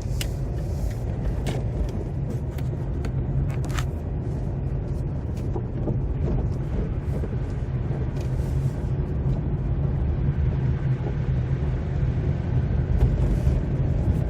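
Steady low rumble of a car's engine and tyres on the road, heard from inside the cabin while driving, with a few sharp clicks or knocks in the first four seconds.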